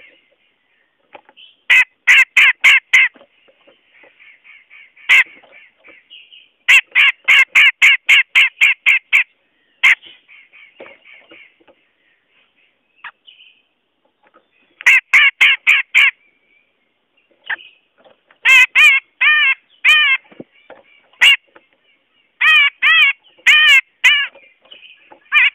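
Cucak jenggot bulbul calling: loud notes repeated in quick runs of about four a second, with pauses and softer chattering notes between the runs. This is a bird-trapping lure call (suara pikat) meant to draw wild cucak jenggot in.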